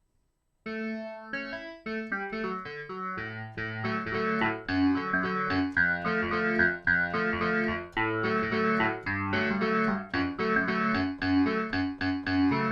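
A sampled electric-piano-style keyboard patch being played. It starts with a run of single notes, then goes on with fuller chords over low bass notes from about three seconds in.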